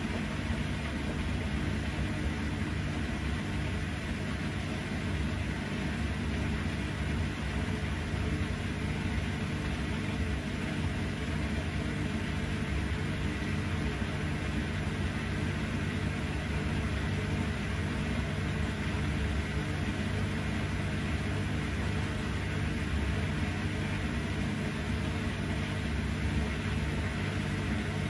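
Bosch Series 6 i-DOS front-loading washing machine tumbling wet laundry during the wash: a steady drum-motor hum with the heavy load turning over in the drum, without pauses.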